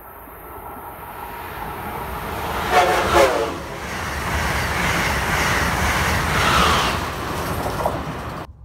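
Amtrak Acela high-speed trainset passing through the station at speed: a rising rush of wheels on rail as it approaches, a short horn blast about three seconds in, then a loud steady roar of the cars going by. The sound cuts off abruptly near the end.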